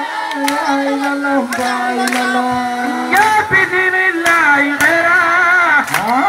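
A man singing into a microphone: long held notes, then a wavering, ornamented melody from about halfway through, with sharp claps scattered through it.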